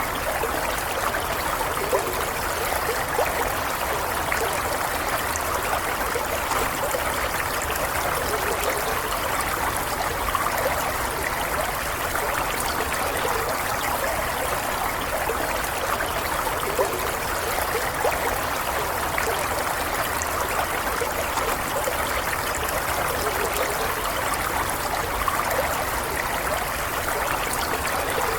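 Water flowing and gurgling in a stream, a steady, even rush with small splashy flecks.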